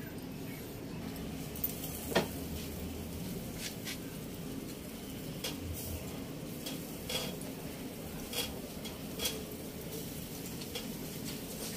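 Metal tongs clicking against a wire grill grate while hotdogs are turned and lifted off over charcoal, with scattered light clicks over a faint steady sizzle.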